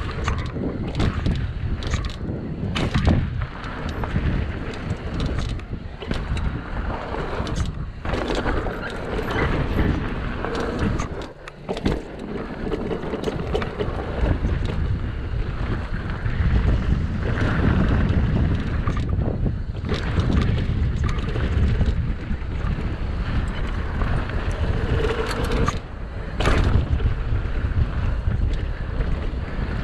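Mountain bike riding a bike-park trail: wind rushing over the microphone and tyre noise, with constant clattering and knocks from the bike over bumps. About eleven seconds in the noise briefly drops, then comes a knock.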